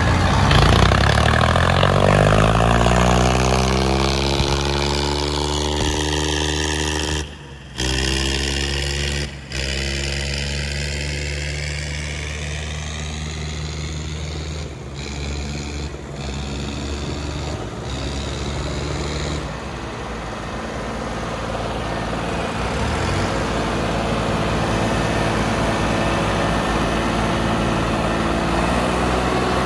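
Farmtrac 60 T20 and Arjun 605 tractor diesel engines revved hard and held at high revs under heavy load, the two tractors chained back to back and pulling against each other. The engine note climbs steeply in the first few seconds, drops back about twenty seconds in, and rises again near the end. The sound cuts out briefly twice early on.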